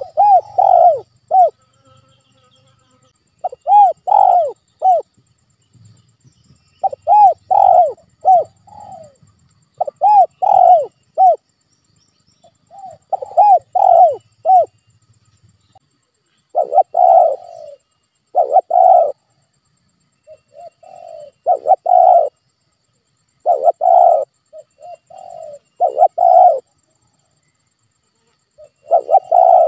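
Spotted dove (tekukur) cooing: a series of short phrases of two to four low, rounded coos, repeated every two to three seconds.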